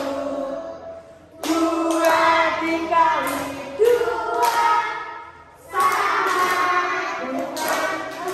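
A group of children singing a multiplication song together in Indonesian, in sung phrases with two short breaks.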